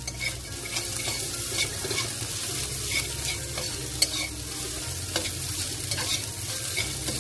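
Fried rice sizzling in a wok over high heat while a metal slotted spatula stirs and scrapes through it, with short clicks of the spatula against the wok about once a second.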